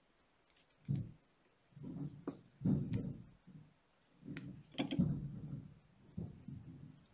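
Hands working copper jewelry wire with pliers: irregular soft knocks and rustles, with a few sharp metallic clicks about three and five seconds in.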